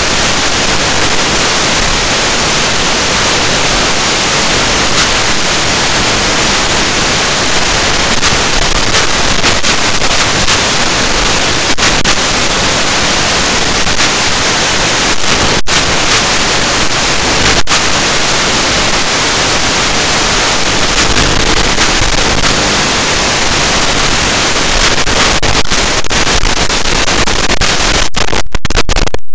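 Loud, steady hiss of static from an analog FPV video receiver's recording, picked up while the crashed quad lies in the grass. A few brief dropouts break the hiss, most of them near the end.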